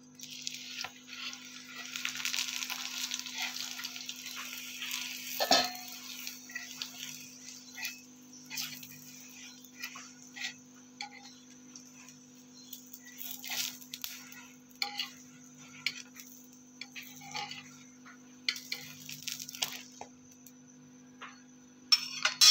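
Oil sizzling on a hot tawa (flat griddle) for the first five seconds or so, then one sharp loud knock, followed by scattered scrapes and taps of a spatula on the griddle as a paratha fries. A steady low hum runs underneath.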